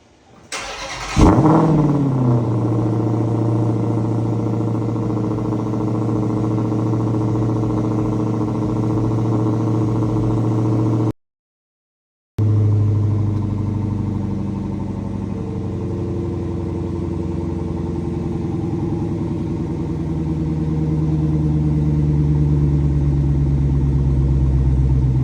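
Dodge Demon 170's supercharged 6.2-litre Hemi V8 on a complete cold start, its exhaust valve actuator springs removed and the valves wired in place: a short crank, a loud flare about a second in, then the revs falling to a steady fast cold idle. The sound cuts out for about a second just before halfway, then the idle carries on.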